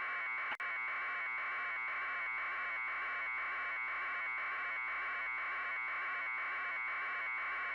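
Steady buzzing static with a faint regular pulse about three times a second, the raw sound channel of an aerial news feed with no narration. It cuts out briefly with a click about half a second in.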